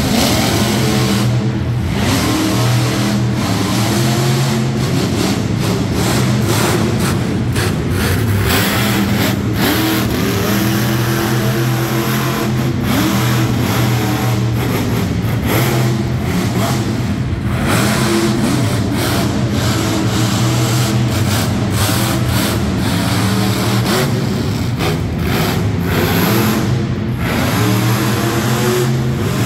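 Monster truck engine revving hard, its pitch rising and falling again and again as the throttle is worked, with a few brief lifts off the throttle.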